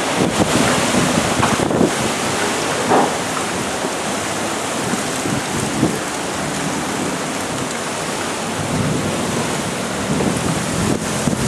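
Thunderstorm: a steady roar of heavy rain and wind, with a few brief louder moments.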